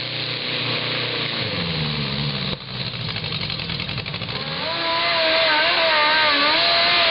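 Modified garden tractor engines running at full throttle while pulling a weight-transfer sled. In the first part the engine's pitch sags and falls. From about halfway, a second tractor's engine runs louder at high revs, its pitch wavering up and down.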